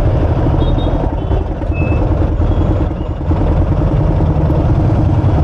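Motor vehicle engine running steadily under road noise, a loud low rumble.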